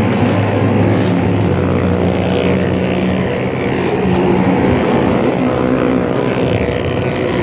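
Motorcycle engines running hard as the riders circle the wooden wall of a Well of Death pit, the engine note rising and falling.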